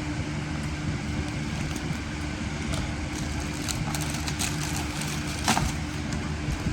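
Packaging being handled and opened, with a few short crinkles and clicks over a steady low hum.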